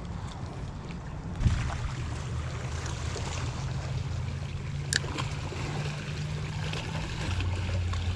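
Small waves lapping and trickling against a rocky seawall over a steady low hum, with a sharp knock about a second and a half in and a lighter click near the five-second mark.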